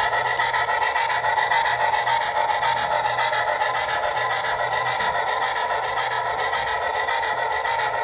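HO-scale model passenger train running past, its coaches rolling along the track with a steady whirr that carries two faint steady tones.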